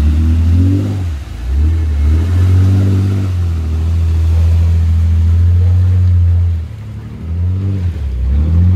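Jeep Grand Cherokee's engine revving hard under load as it pushes through deep mud and climbs a muddy bank. The revs rise and dip in the first second or so, hold high and steady for about five seconds, drop briefly about seven seconds in, then rise again near the end.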